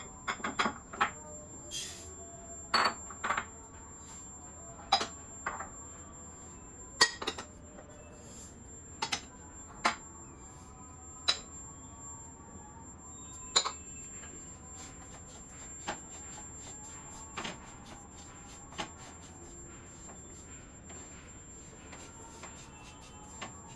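A utensil knocking and scraping against a metal kadhai as whole spice seeds are added and stirred to dry-roast them. The knocks are irregular, each with a short ring, coming often in the first half and only every few seconds later.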